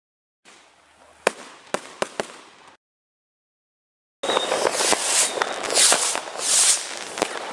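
Consumer fireworks going off: a few sharp bangs over a faint hiss, a brief dead silence, then about four seconds in a loud, dense crackling with repeated pops and several hissing swells.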